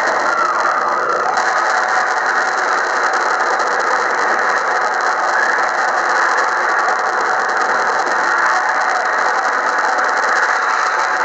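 Film sound effect of a huge swarm of mobile phones massed into a giant bird: a loud, steady mechanical clattering and whirring.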